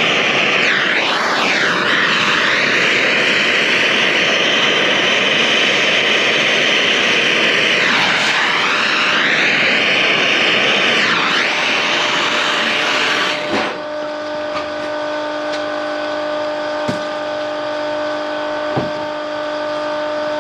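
A high-speed electric power tool motor runs loudly, its pitch sagging and recovering a few times as it is loaded, then cuts off suddenly after about thirteen seconds. A steady hum and a few knocks follow.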